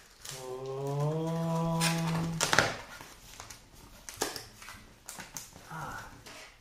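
A cardboard shipping box being pulled open by hand. First a held, slightly rising pitched tone for about two seconds ends in a sharp rip, then the flaps are lifted with scattered rustles and taps of cardboard.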